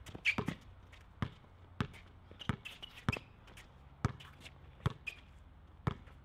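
Basketball dribbled on an outdoor hard court: sharp single bounces at uneven spacing, roughly one a second, with a few short high squeaks in between.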